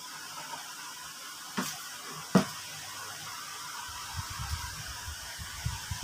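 Two sharp clicks about three-quarters of a second apart, the second louder, as the hang-on filter is handled while it is being fitted on the tank edge, over a steady faint hiss. Irregular low bumping of handling noise follows.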